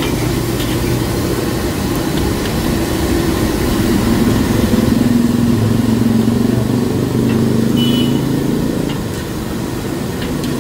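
Metal spatula scraping and tossing rice and noodles in a wok over a gas burner, under a steady low hum that is the loudest sound throughout.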